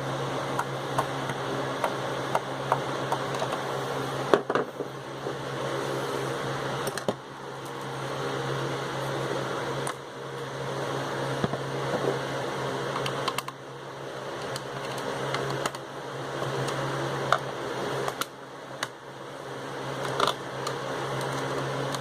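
Light clicks and ticks of small plastic parts being handled and worked loose on an opened Bluetooth speaker case, over a steady low hum.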